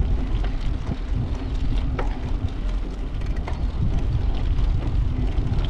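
Wind buffeting the microphone while riding a bicycle along a concrete path: a steady low rumble with a few light knocks scattered through it.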